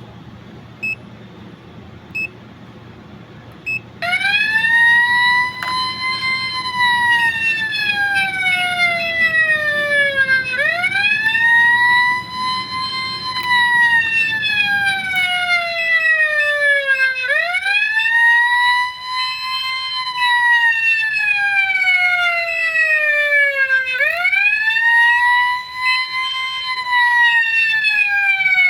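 Burglar alarm going off: three short chirps, then a loud siren wail that rises quickly and falls slowly. Each cycle lasts about six and a half seconds, and it repeats four times.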